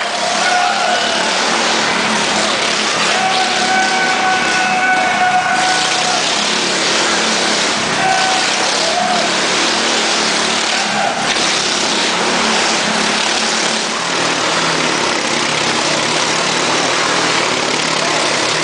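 Motorcycle engine running hard as the bike circles the vertical wooden wall of a Wall of Death drum, a loud, unbroken engine noise with a held tone for a few seconds early on.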